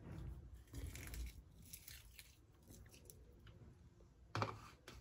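Hands squishing raw chicken pieces with sliced onion, turmeric, salt and oil in a bowl: faint, soft, wet squelching, with one sharp knock near the end.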